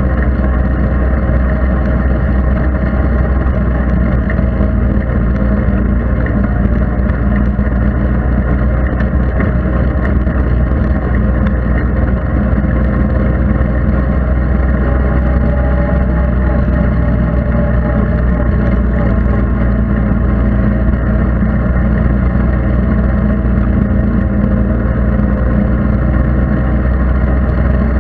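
ATV engine running steadily at low speed, heard up close from a camera mounted on the machine: a deep, even drone with little change in engine speed.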